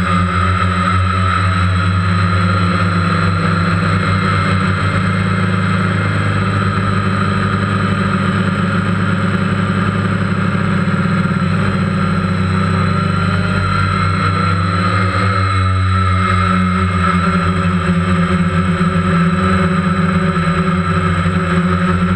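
Phantom quadcopter's motors and propellers, heard from the camera on board: a steady, loud buzzing hum with a high whine over it while it flies. The pitch shifts slightly about two thirds of the way through.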